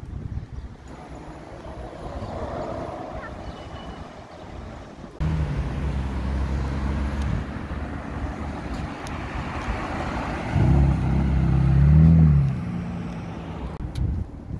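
Quiet street traffic, then a sports car's engine running low and getting louder as it approaches. It is revving hard as it accelerates past about eleven to twelve seconds in, the pitch climbing and then dropping.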